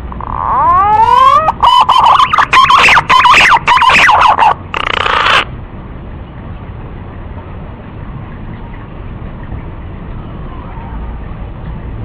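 Male pink-necked green pigeon (punai gading) song, played back as a lure call: a few rising whistled glides, then a fast string of wavering whistled notes. It is loud and stops about five and a half seconds in, leaving a steady hiss.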